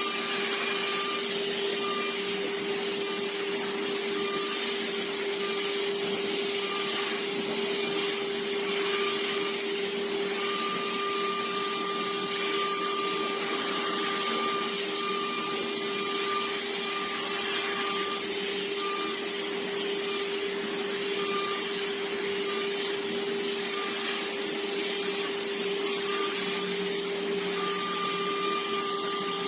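Small CNC machine running: its drill spindle gives a steady whine under a hiss, while a higher tone comes and goes every second or so as the machine works.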